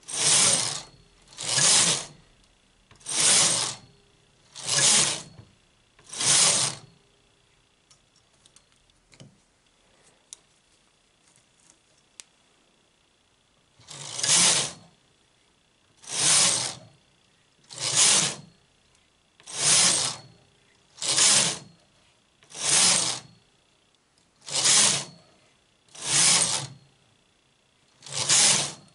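Domestic knitting machine's carriage pushed back and forth along the metal needle bed, knitting a row with each pass: a noisy clattering sweep of under a second about every one and a half seconds. Five passes, a pause of several seconds with a few faint clicks, then nine more passes.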